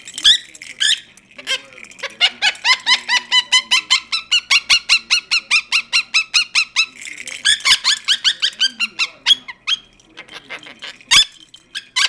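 Monk parakeet chattering: a long, rapid run of short, pitched, squeaky chirps at about five a second. A single sharp knock comes near the end.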